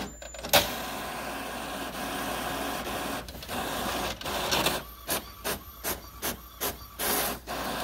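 Epson WorkForce Pro WF-3720 inkjet printer printing its network connection check report. A sharp click about half a second in is followed by a steady mechanical whir, then a run of regular strokes, about two to three a second, in the last three seconds.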